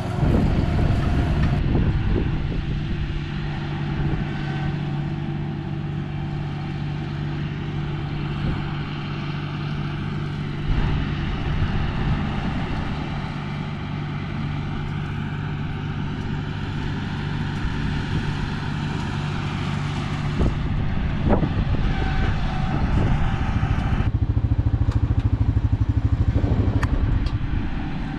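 John Deere 5045E tractor's diesel engine running steadily while driving an MX8 rotary cutter through a field of dry weeds, with a few brief knocks.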